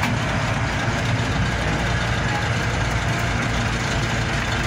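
Lattice-boom crane's engine running steadily with a constant low drone while the crane holds a large wooden boat suspended on slings.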